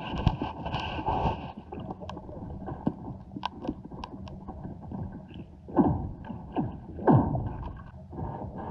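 Lake ice heard from underwater: scattered sharp clicks and ticks, with loud falling 'pew' sweeps about six and seven seconds in, the sound of the ice sheet cracking and shifting.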